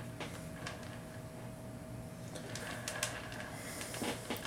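A display turntable turned by hand, giving a few light clicks and taps over a steady faint hum.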